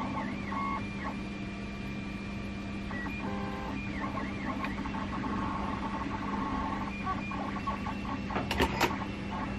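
Small electric motors whining in steady tones that shift and waver in pitch over a constant low hum, with a few sharp clicks near the end.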